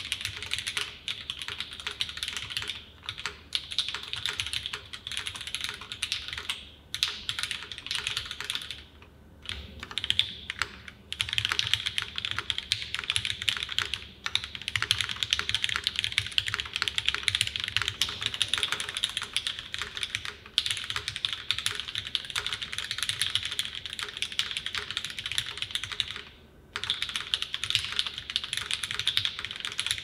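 Continuous fast typing on a Synovia mechanical keyboard with Hyperglide Cherry MX Black linear switches lubed with Tribosys 3204, a stainless steel plate and GMK Space Cadet keycaps: a dense stream of key clacks. It is heard from camera distance with some of the room in it, and breaks off briefly about nine seconds in and again a few seconds before the end.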